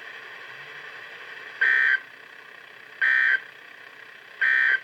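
The three end-of-message SAME data bursts of an Emergency Alert System broadcast on NOAA Weather Radio: short, harsh two-tone digital buzzes, each about a third of a second long and about a second and a half apart, over faint radio hiss. They signal that the alert message has ended.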